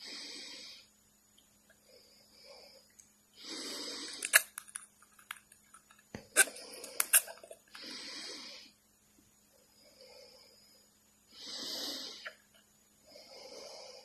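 Cockatiel making breathy hisses into a clear plastic cup, louder and softer hisses in turn, each under a second long. A few sharp clicks near the middle, its beak tapping the cup.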